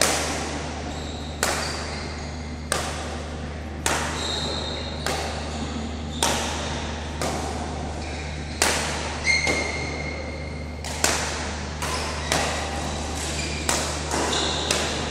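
Badminton rackets striking a shuttlecock in rallies, sharp echoing hits about every second, coming quicker and overlapping later as several courts play at once. Short high squeaks come in between, over a steady low hum.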